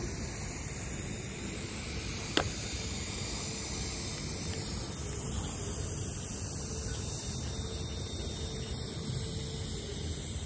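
Tail end of a double-stack container freight train rolling past, a steady rumble and hiss of wheels on rail, with one sharp click about two and a half seconds in.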